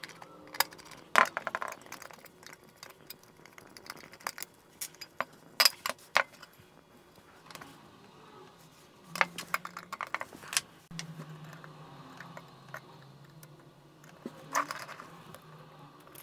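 A screwdriver and small screws clicking and clinking as a guitar pedal's enclosure is unscrewed and its circuit board handled: scattered sharp taps, the loudest about a second in. A low steady hum comes in about eleven seconds in.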